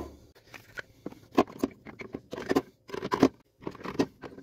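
Wood lathe chisels and gouges being dropped one by one into a 3D-printed PLA tube rack: a string of irregular clacks and knocks of the steel tools against the plastic tubes, a few with a short ring.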